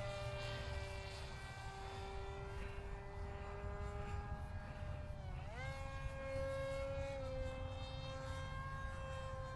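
Small electric RC plane motor running at a steady hum, then sweeping up quickly to a higher steady pitch about halfway through as the throttle is raised.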